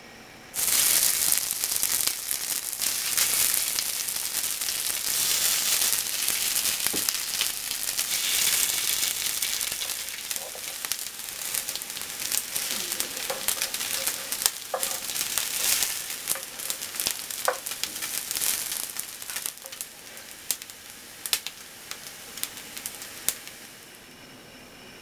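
Rice balls sizzling in hot sesame oil in a nonstick frying pan. The sizzle starts suddenly as they go in and gradually eases, with a few sharp taps of a utensil against the pan in the second half as they are turned.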